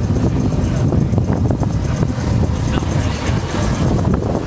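A large engine runs with a steady low rumble, with wind buffeting the microphone.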